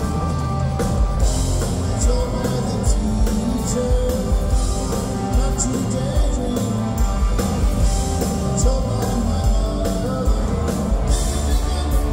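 Live rock band playing in a theatre, with a drum kit keeping a steady beat under guitars and keyboards.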